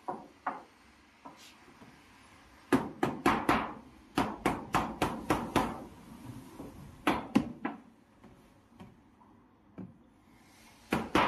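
A refrigerator's panel being fitted back into place: a run of sharp knocks and taps, several a second, then a few single ones further apart.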